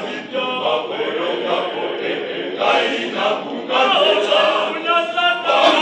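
Church choir of boys and young men singing a hymn together, the voices swelling louder a little past the middle.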